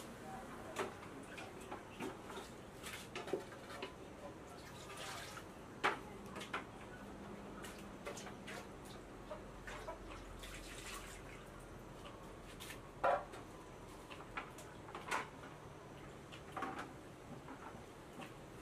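Water dripping and splashing in buckets and pots, with scattered short clinks and knocks of the containers being handled.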